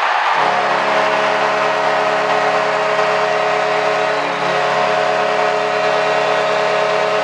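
Hockey arena goal horn sounding one long steady note for about seven seconds over a cheering crowd, starting and cutting off abruptly. The horn signals a goal.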